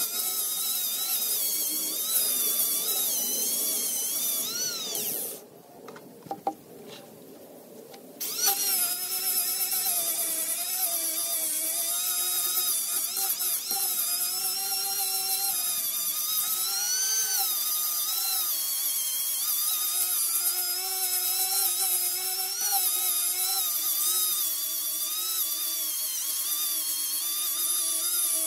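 Handheld electric power tool grinding the surface of a paulownia wood slab: a steady high whine whose pitch wavers. It stops about five seconds in and starts up again about three seconds later.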